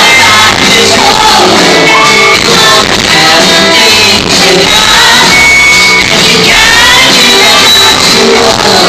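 Live band playing pop-rock with a singer belting over it, heard in a large hall. The audience recording is loud and near clipping, so the sound is harsh and distorted.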